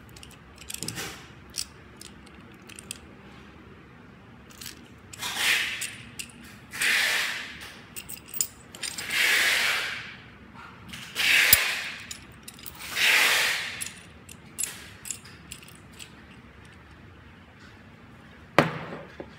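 Aluminium truss clamp being handled and worked open: metal parts rubbing and sliding in about five scraping swells of a second or so each, with a scattering of sharp metallic clicks, the loudest one near the end.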